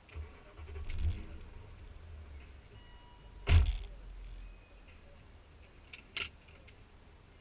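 A car's driver door shuts from inside the cabin with one heavy thump about halfway through, amid rustling and handling noises. A couple of sharp clicks follow near the end.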